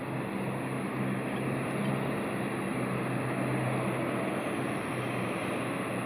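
Steady low engine hum over a broad rushing noise, with no bird calls heard.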